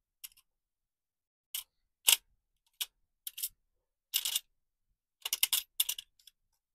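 Small metal model parts and a clear plastic compartment box clicking and rattling as they are handled and sorted by hand: scattered sharp clicks, with a quick flurry of rattles near the end.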